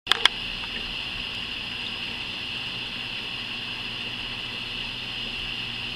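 Steady hiss of background noise, with two sharp clicks right at the start.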